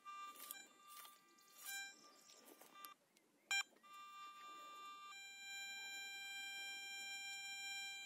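Garrett ATX pulse-induction metal detector sounding: short intermittent tones at first, a brief louder beep about three and a half seconds in, then a continuous tone that steps down in pitch about five seconds in and holds. The detector is signalling a jar lid about 50–60 cm from the coil at sensitivity 11.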